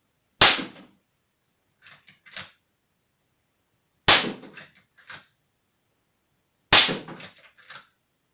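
Walther Lever Action CO2 air rifle firing three shots about three seconds apart, each a sharp crack. After each shot come a few softer metallic clicks as the lever is worked to chamber the next pellet.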